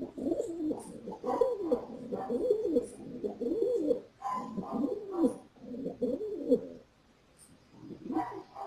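Pigeon cooing: repeated low calls that rise and fall in phrases, pausing about seven seconds in before a few more calls near the end.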